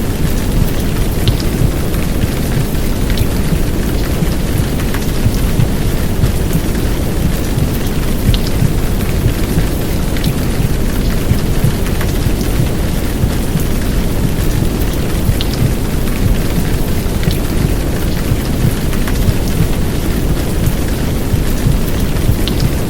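Heavy downpour of rain, a steady dense hiss with scattered drop ticks, layered over a deep, even low rumble of womb-sound white noise.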